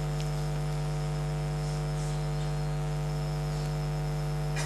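Steady electrical mains hum with a buzzy string of overtones, strongest in a low drone, unchanging throughout.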